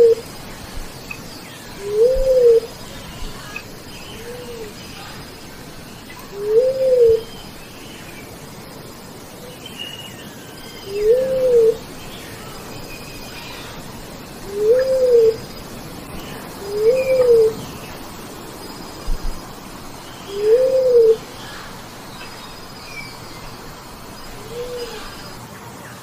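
Bleeding-heart dove calling: a series of single low coos, each rising then falling in pitch, repeated every two to four seconds, a few of them fainter. Faint chirps of other forest birds sound between the coos.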